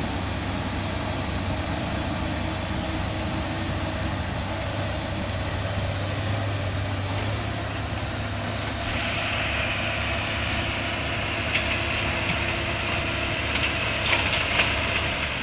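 Heavy machinery's diesel engine running steadily. About nine seconds in, the sound changes, losing its high hiss, and a few sharp clanks come near the end.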